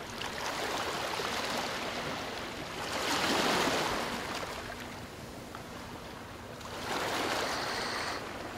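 Sea waves washing on the shore, a steady rush that swells twice, about three seconds in and again about seven seconds in.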